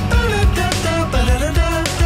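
Background music: a song with a melody line that slides in pitch over drum hits.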